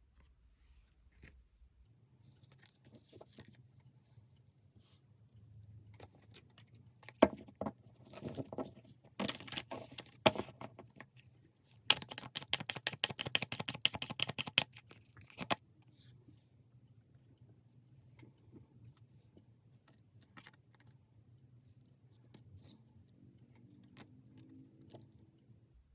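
Tarot cards being handled and shuffled. There are scattered slaps and rustles, then about a second in after the middle a rapid run of card flicks lasting some three seconds, the loudest part.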